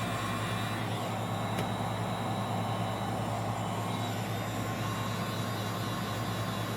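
Hot-air blower running steadily, a continuous rush of air over a low motor hum, warming the phone to soften its adhesive.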